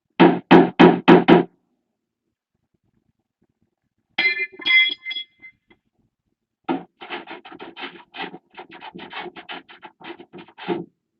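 Four sharp knocks in quick succession, then a short ringing chime, then a fast, uneven run of lighter knocks lasting about four seconds.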